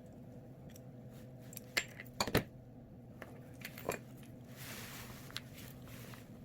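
A few light clicks and clinks of small metal jewellery fittings being handled on a work surface, the sharpest pair about two seconds in and another near four seconds, then a faint hiss.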